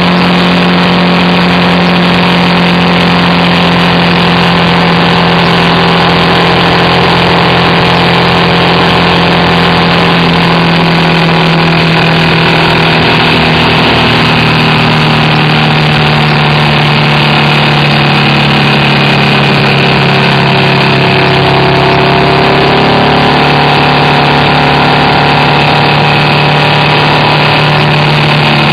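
BMW R1200RT's boxer twin engine running at a steady cruise, heard over a constant rush of wind and road noise. Its note dips a little in pitch about halfway through, then holds steady.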